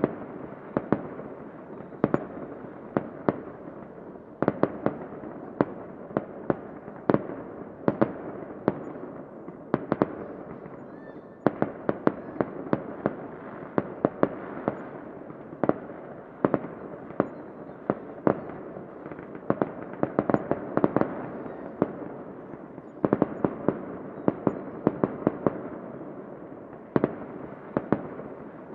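Fireworks going off: a continuous crackling haze with dozens of sharp bangs and pops on top, irregular and sometimes coming several a second in clusters.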